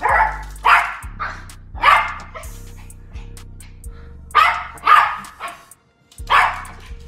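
Yorkshire terrier barking excitedly for treats, about six sharp barks, some in quick pairs.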